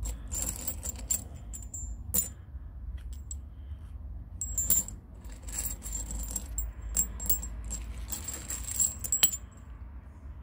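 Small cast metal figurines clinking and jingling against each other as a gloved hand scoops them up from a pile and handles them, a string of sharp metallic clicks that stops shortly before the end.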